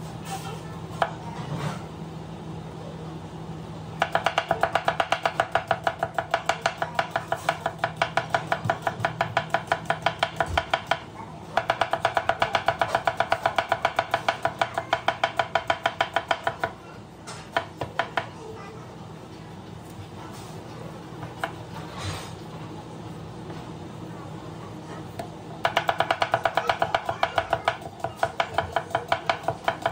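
Kitchen knife slicing onion on a cutting board: fast, even strokes about five a second, each ending in a knock on the board. The strokes come in three long runs, with only a few single knocks in the pause between.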